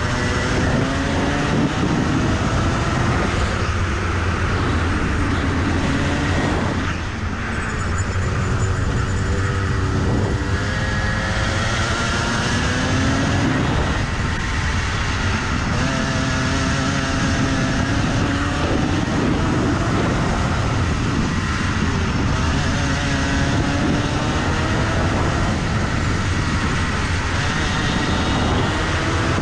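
Rotax two-stroke kart engine at race pace, its pitch climbing as it pulls along the straights and falling back several times when the throttle is lifted for corners, over steady wind noise on the onboard microphone.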